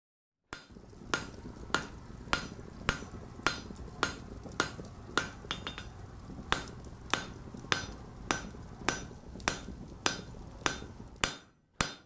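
Blacksmith's hammer striking on an anvil in a steady rhythm, about three blows every two seconds, each with a short metallic ring, over a steady low rumble. There is a brief pause just after the middle, and the rumble drops away near the end while the blows go on.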